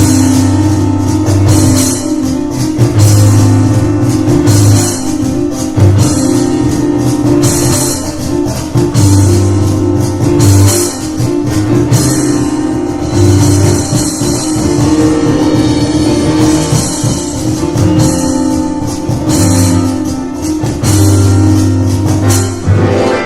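Live instrumental music from a piano and cajón duo: dense, driving piano chords over a continuous cajón beat.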